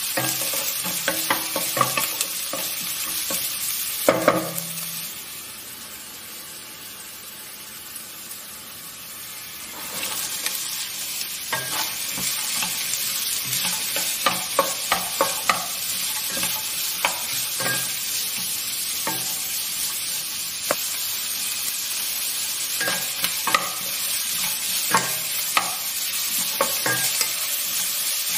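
Chopped onion and then chopped cabbage, carrot and capsicum sizzling in hot oil in a nonstick pot, stirred with a wooden spatula that scrapes and taps against the pot. The sizzle drops quieter for about five seconds a quarter of the way in, then comes back up with frequent spatula knocks.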